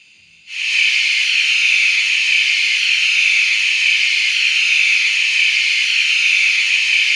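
Steady steam hiss from a GWR 16XX pannier tank's sound file on an ESU LokSound 5 DCC decoder, played through the model's small factory-fitted speaker. It cuts in suddenly about half a second in and holds steady and loud with the locomotive standing still.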